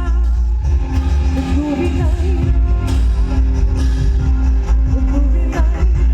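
Live band music with a heavy, steady bass, held chords and a singing voice.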